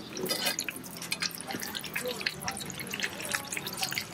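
Hot oil sizzling and popping in a shallow pan as flaky beef pastries fry in it, with many small irregular crackles.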